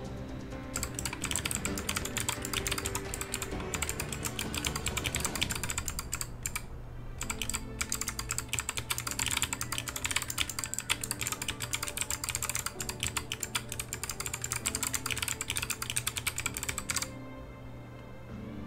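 Rapid keystrokes clicking on a small one-handed mechanical keypad, typed in quick runs with short pauses, then stopping about a second and a half before the end. Background music with steady held tones plays underneath.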